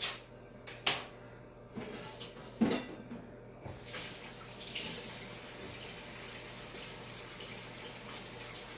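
A few sharp knocks and clunks over the first three seconds or so, the loudest near the third second, then a kitchen sink tap is turned on and runs steadily.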